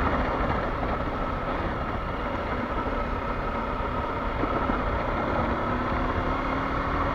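Kawasaki Versys-X 300's parallel-twin engine running at a steady pace while riding, mixed with wind noise on the helmet microphone.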